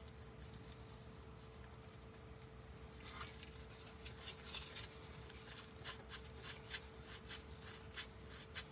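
Faint metallic clicks and scrapes of a long 8 mm oil-pump pickup bolt being worked out by gloved fingers, starting about three seconds in, over a steady faint hum.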